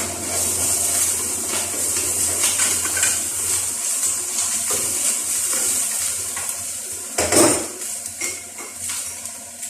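Minced ginger and garlic sizzling in hot coconut oil in a pan, with a utensil clinking and scraping against the pan. There is one loud clatter about seven seconds in, and the sizzle fades near the end.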